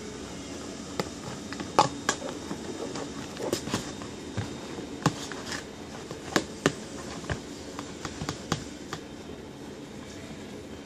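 Sticky homemade glue slime pressed against the sides of a clear plastic container to lift leftover glue: irregular sharp clicks and small snaps as it sticks and pulls away from the plastic.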